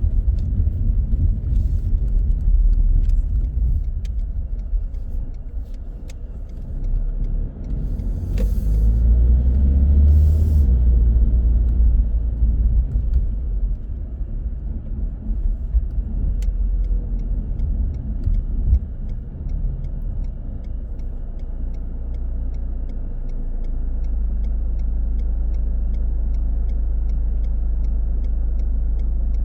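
Car driving through city traffic: a steady low rumble of engine and road noise. Two short hisses come about eight and ten seconds in, and the rumble settles into a steadier hum near the end.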